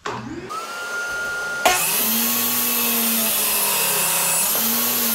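Benchtop table saw switched on and spinning up, its pitch rising, then running steadily loud as a board is pushed over the blade to cut a shallow groove. About a second and a half in, a sudden loud hit as the blade bites into the wood.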